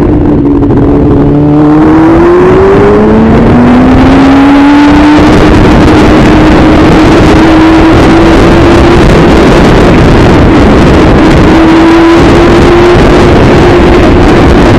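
Motorcycle engine accelerating, its pitch climbing over the first few seconds, then running at a steady speed. Loud wind rush on the microphone nearly covers it.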